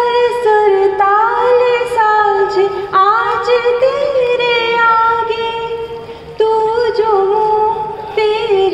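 A woman singing a melodic passage into a handheld microphone, with long held notes and gliding ornaments; the voice dips briefly about six seconds in, then comes back strongly.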